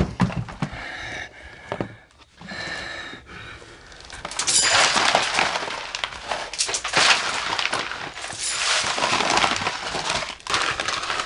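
Dry grain (the five-grain mix, ogok) flung by the handful, scattering and rattling across hard debris in a dense spray of small ticks that lasts several seconds.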